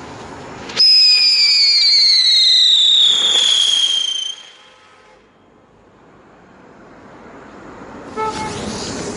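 Funke Tornado Wirbel spinning firework lifting off with a loud whistle that falls slowly in pitch for about three and a half seconds, then cuts off. Near the end a steady hiss starts up again.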